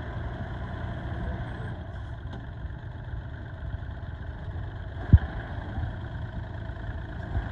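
Compact utility tractor's diesel engine running steadily at low speed as the tractor moves slowly. A single sharp thump about five seconds in, and a softer one near the end.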